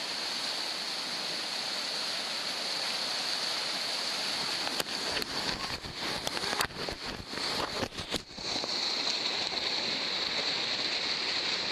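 Whitewater rapids rushing steadily, picked up by a camera tucked in a pocket. From about four to eight seconds in, irregular splashes and knocks break in.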